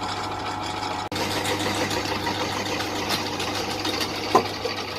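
Titan pillar drill running with a 25 mm bit cutting through 4 mm mild steel: a steady motor hum that turns louder and rougher about a second in as the bit bites into the metal. It is a bit noisy and the drill struggles under the load, with a brief squeal near the end.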